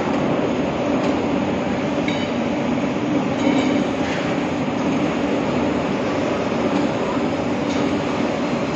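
Steady mechanical drone with a low hum, like machinery running in the workshop, with a few light clicks as the metal parts of a valve are handled and fitted together.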